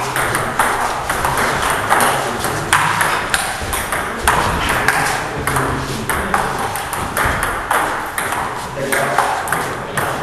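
Table tennis rally: the celluloid ball clicking off the players' rubber-faced bats and bouncing on the Donic table in quick succession, with voices in the background.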